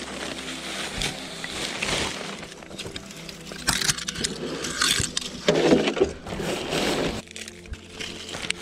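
Dry brush and twigs rustling and scraping as gloved hands reach in and pull out litter, with plastic and paper crinkling. The handling is loudest and densest between about three and a half and seven seconds in.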